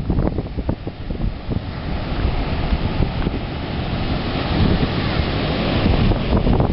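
Ocean surf breaking and whitewater hissing as it washes in, swelling in the second half, with wind buffeting the microphone in a gusty low rumble.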